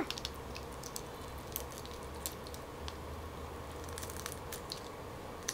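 Faint, scattered small crackles and clicks of a steamed tiger prawn's shell being pulled apart and peeled by hand.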